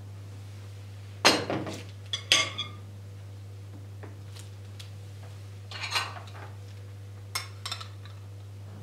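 Bowls and a spoon knocking and clinking against each other and the countertop in a few short clusters: the loudest knock about a second in, more around two seconds, six seconds, and a quick pair near the end.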